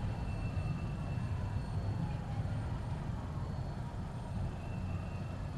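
Low, steady rumble of a long freight train rolling past.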